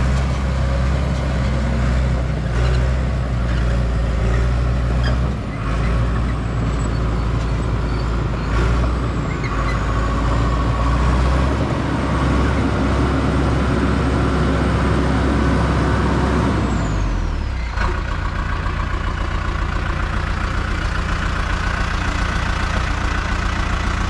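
Crawler dozer's diesel engine running as the machine drives along. About three-quarters of the way through, the engine note drops and settles into a steady idle as the dozer stops.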